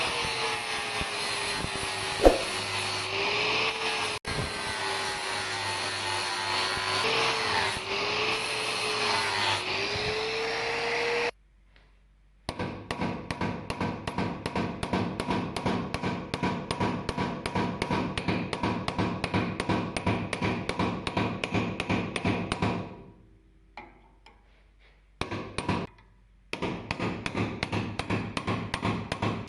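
A power tool working on metal for about eleven seconds, its pitch sagging and recovering under load. After a brief stop come rapid, even hammer strokes, about four or five a second. They pause for a few seconds with a couple of single knocks, then resume.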